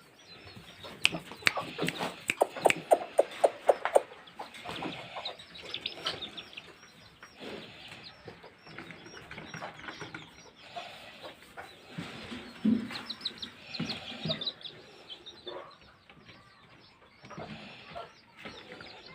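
Kate bantam chickens clucking, with many short high chirps throughout. A quick run of sharp clicks comes in the first few seconds, and a louder burst of low clucks comes past the middle.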